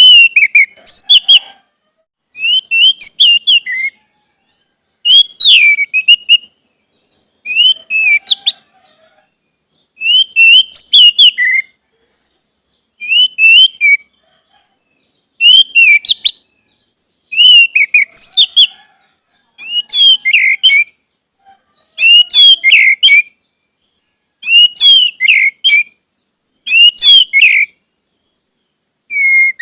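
Orange-headed thrush (anis merah) singing: about a dozen short phrases of quick, varied whistled notes, each lasting about a second, repeated every two to three seconds with brief silences between.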